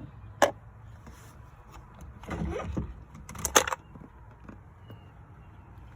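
Handling noises from work on a car's steering wheel and column: a sharp click about half a second in, a rough scraping rustle around two and a half seconds, then a loud metallic clack a little later.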